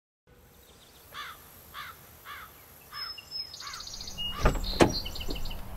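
Outdoor ambience fades in, with a bird repeating a short arched chirp about every half second and higher bird calls behind it. Two loud sharp knocks come close together about four and a half seconds in.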